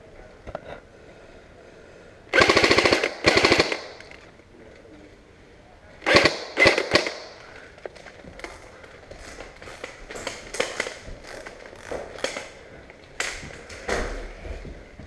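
Airsoft rifle fired close up: two quick full-auto bursts about two and a half seconds in, the loudest sounds, then a short string of sharp shots around six seconds and scattered sharp clicks and knocks after that.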